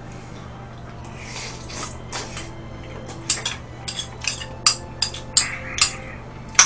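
Spoon clinking and scraping against a small ceramic bowl while eating stew, with a run of quick clinks in the second half, and soft wet eating sounds in between.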